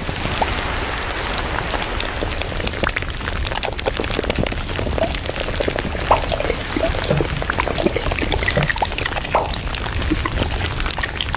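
Water patter: a dense, continuous spatter of small drops and splashes with brief bubbly plinks, over a steady low hum.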